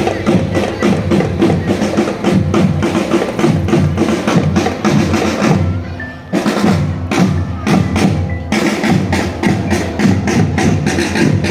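Marching drum band playing: snare and bass drums beating a fast, steady rhythm, with a brief drop about six seconds in before the drumming resumes.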